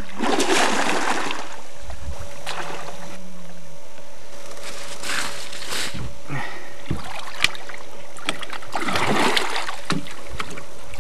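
Water splashing in several bursts as a hooked wels catfish thrashes at the surface beside a boat, with one sharp click a little after halfway.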